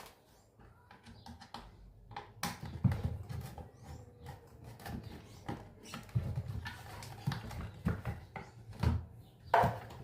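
Irregular knocks, thuds and scraping as a hand-disassembled speaker cabinet and its parts are handled and pried at, with several heavier knocks spread through.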